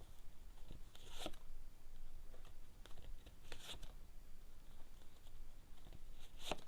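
Deck of Lenormand cards being shuffled and handled, giving several short papery swishes spread a second or two apart.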